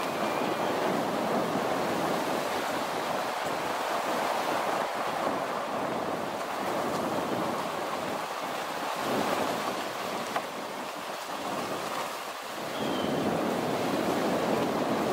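Steady rushing tyre and road noise of a vehicle driving a rough two-track road, heard from inside the cab. It eases off for a couple of seconds about ten seconds in, then picks back up.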